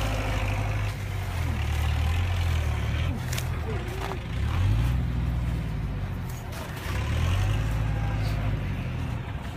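Tractor engine running with a low rumble, speeding up twice, about four and a half and seven seconds in.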